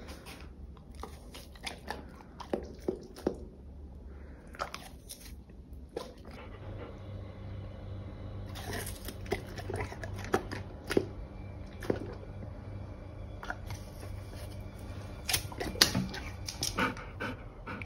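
Golden retriever biting and chewing raw pear slices: a run of irregular crisp crunches and mouth clicks, louder bursts in the middle and near the end, over a low steady hum.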